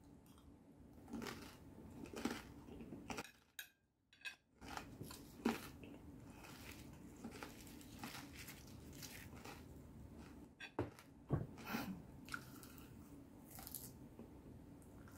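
Close-up chewing and crunching of a crispy Thai salad of crispy fish, crispy pork and pork rinds: irregular crisp crunches with a brief pause a few seconds in.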